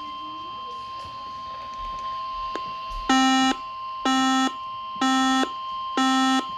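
NOAA Weather Radio warning alarm tone: a steady single tone near 1050 Hz, the signal that a warning message follows. About three seconds in, a louder buzzy electronic beep joins it, repeating about once a second, four times.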